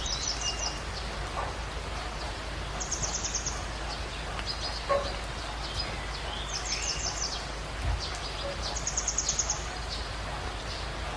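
Birds singing in a forest soundscape: one bird repeats a short, fast, high trill about every three seconds, with other brief calls between, over a steady background hiss.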